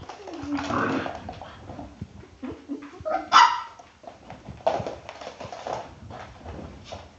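A dog barking in short, irregular bursts; the loudest bark comes about three seconds in.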